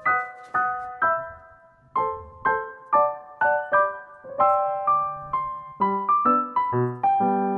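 Background piano music: a gentle melody of single struck notes, about two a second, with lower notes and chords joining in over the last couple of seconds.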